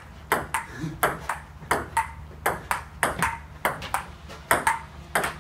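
Table tennis ball clicking off the bats and the outdoor table in a quick back-and-forth rally. The clicks come two or three a second, often in close pairs of a hit and a bounce, each with a short hollow ring.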